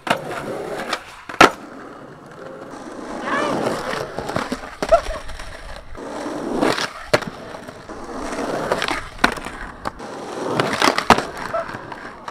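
Skateboard wheels rolling on concrete in several swells that build and fade, broken by sharp clacks of the board hitting the pavement, about five in all.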